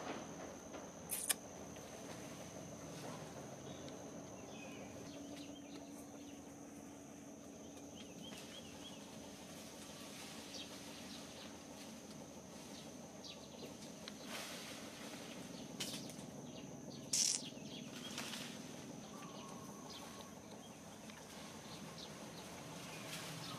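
Quiet outdoor background with a steady high-pitched tone, a few faint bird chirps, and two brief sharp noises, one about a second in and a louder one about seventeen seconds in.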